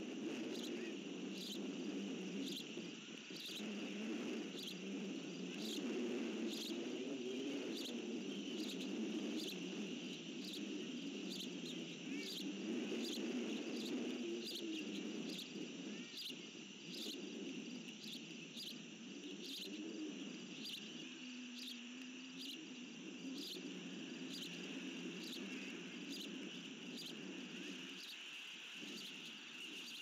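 Insects chirping steadily outdoors: a continuous high buzz with short, regular pulses a little more than once a second, over a low, uneven rumble.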